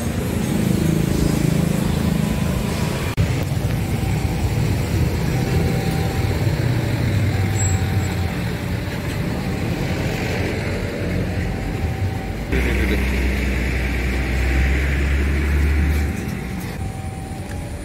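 Road traffic on a busy street: cars and motorcycles passing with engines running. A louder low engine hum sets in suddenly for a few seconds near the end.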